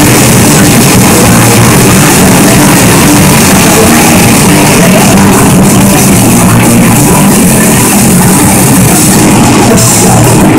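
Loud live punk rock: distorted electric guitars and a drum kit playing fast and hard, with shouted vocals over them.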